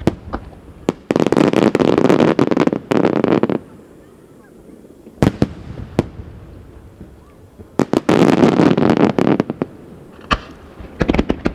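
Aerial fireworks shells bursting: single sharp bangs, then two long dense stretches of rapid overlapping bursts and crackle, one early and one past the middle, each lasting a couple of seconds.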